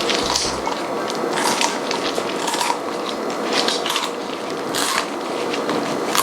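Kitchen shears snipping through a raw chicken's ribs alongside the backbone, giving several irregular crunches as the bones are cut.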